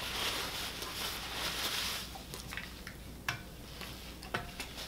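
Paper napkin rubbed between the hands, a soft rustling for about two seconds, then a few light clicks and taps as things on a plate are handled.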